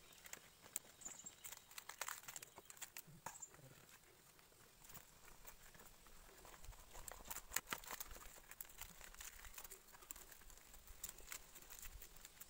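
Faint, irregular crackling and rustling of a fresh banana leaf being folded by hand and pushed into a green bamboo tube, the crackles loudest a little past the middle.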